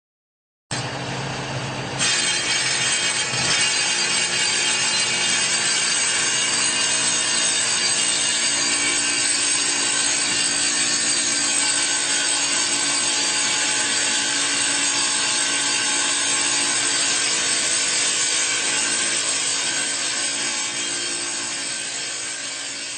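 Power saw cutting a granite tile, starting abruptly under a second in, getting louder about two seconds in, then running steadily before tapering off near the end.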